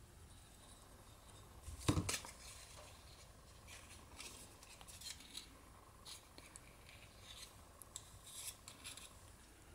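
Quiet handling of a small cardstock box: faint rustles and small clicks as fingers press its glued flaps together, with a sharper double knock about two seconds in as the liquid glue bottle is set down on the table.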